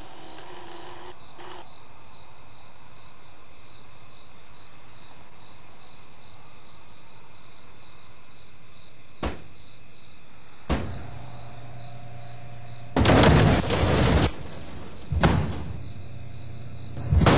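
Snack vending machine: a faint steady night hiss, then a sharp click about nine seconds in, after which the machine's motor starts a steady hum. Loud harsh bursts follow three times near the end as the machine runs.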